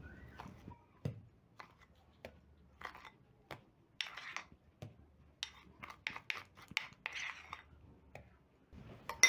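Spoon scraping and tapping against a ceramic bowl while scooping out a thick cinnamon and brown-sugar butter spread: faint short scrapes and light clicks at irregular intervals.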